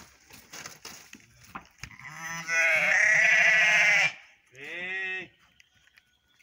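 Sheep bleating close by: one long, loud, wavering bleat about two seconds in, then a shorter bleat right after. Faint scuffling comes before the bleats.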